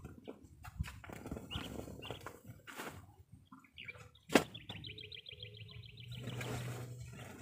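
Shovel scraping and scooping soil and dumping it into a woven sack, with one sharp knock a little under halfway through, the loudest sound. Just after it a bird gives a rapid high trill lasting about two seconds.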